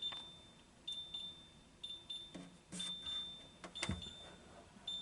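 Refrigerator door-open alarm beeping, a high steady tone repeating about once a second, the sign the door has been left open too long. A few knocks of items being handled sound over it.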